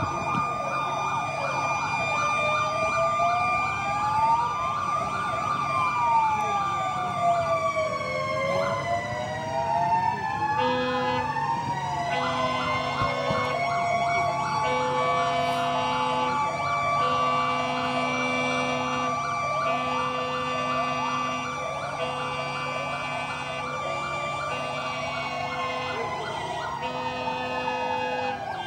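Several sirens wailing at once, their pitches rising and falling out of step with one another, with a lower tone sounding on and off from about ten seconds in. They are sounded in remembrance at the time of the explosion.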